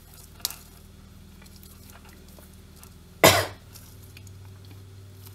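A single short cough about three seconds in, the loudest sound, over a low steady hum. Before it there is one sharp click and faint ticking of a knitting needle working through yarn as stitches are picked up.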